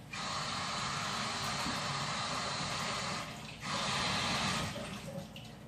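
Water running from a kitchen tap, with a steady rush that stops briefly about three seconds in and then runs for about another second.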